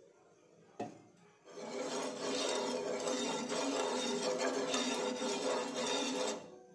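A single knock, then a steel ladle rubbing round and round on a nonstick tawa for about five seconds, spreading oil over its surface; the rubbing stops abruptly near the end.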